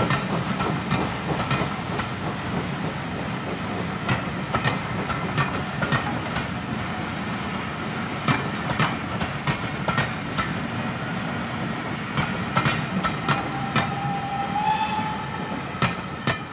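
Passenger coaches rolling past on jointed track, the wheels clicking over the rail joints in an irregular run of clicks over a steady rumble. A brief high steady tone sounds near the end as the last coach goes by.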